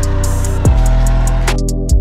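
Backing music with a steady beat: deep bass-drum hits that drop in pitch, quick hi-hat ticks, and held notes underneath.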